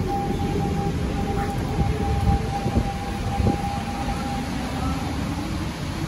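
Kawasaki Heavy Industries C151 metro train pulling away from the station: rumble of wheels on the track with a steady high whine that fades out about four and a half seconds in as the train draws away.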